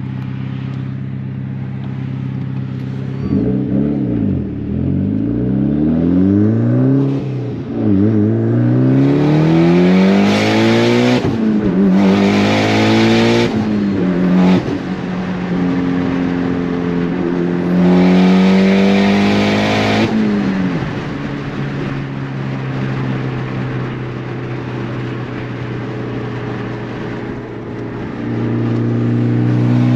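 Turbocharged 2.0-litre four-cylinder of a tuned Mitsubishi Lancer Evolution X with a full titanium exhaust, heard inside the cabin. It cruises steadily, then accelerates hard several times, the revs climbing and dropping sharply at each gear change. It settles back to a steady cruise, then pulls again briefly near the end.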